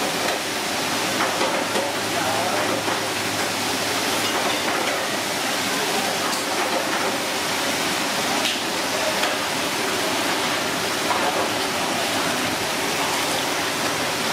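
Steady hiss-like noise with indistinct chatter of several voices underneath, and a faint steady hum.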